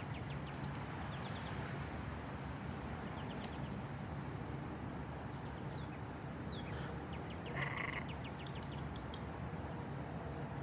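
Steady outdoor background noise with a few brief, high bird chirps scattered through, and one short bird call about three quarters of the way through.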